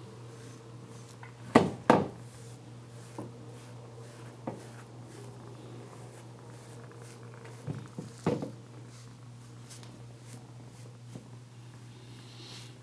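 Soft, scratchy strokes of a pet brush through a Bengal cat's coat over a steady low hum. Two pairs of sharp knocks, about a second and a half in and about eight seconds in, are the loudest sounds.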